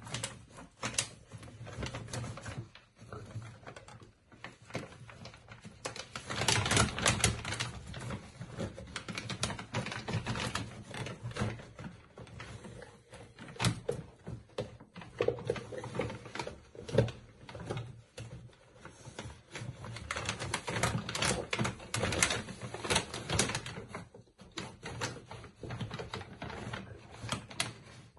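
Basset hound rummaging with its nose in a bag on a low shelf: a rapid, irregular stream of crinkling and clicking that swells twice, once about a quarter of the way in and again after the middle.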